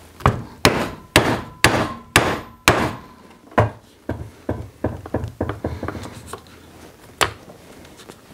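A leather punch struck with a mallet to punch a hole through a leather belt on a plastic cutting board. Six hard blows come about two a second, then a run of quicker, lighter taps and one last sharp blow near the end.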